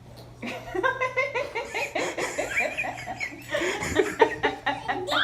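A baby laughing, a long run of quick, high-pitched laughs starting about half a second in.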